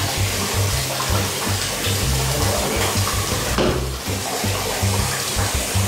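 Bath tap running steadily, pouring a stream into a tub already full of water. Background music with a low, stepping bass line plays underneath.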